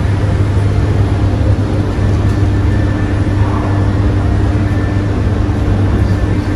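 Steady low electrical hum of mains-powered machinery, with a fainter higher tone held above it.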